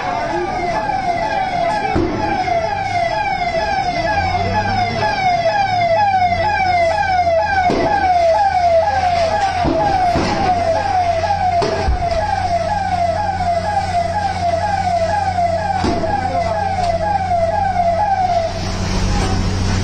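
Fire engine siren sounding a fast yelp, a falling wail that repeats about two and a half times a second and cuts off near the end. A low steady engine drone joins about four seconds in, with a few scattered knocks.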